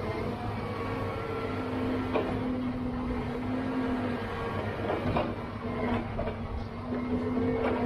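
Diesel engine of a John Deere tracked log loader running, with a hydraulic whine that comes and goes as the Rotobec grapple and boom move. Several knocks of logs being set on the log truck's load, about two, five, six and nearly eight seconds in.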